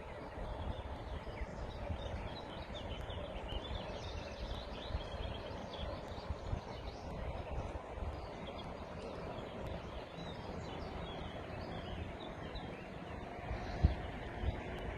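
River water rushing steadily, with birds chirping over it in quick short calls, busiest in the first two-thirds. A single short thump comes near the end.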